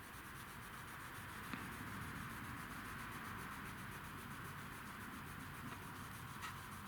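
Faint, steady rubbing of a cloth over car paintwork, working an abrasive scratch-remover polish back and forth into surface scratches.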